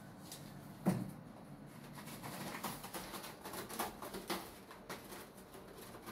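A British Shorthair cat lands with a thump about a second in, then rakes its claws over a curved scratching board in quick, repeated scratchy strokes.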